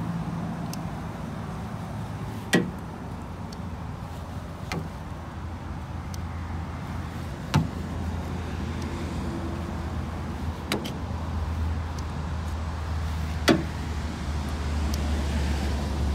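The probe of a handheld paint-thickness gauge tapping against a pickup's painted body panels: a sharp click about every two to three seconds as each reading is taken, over a steady low rumble.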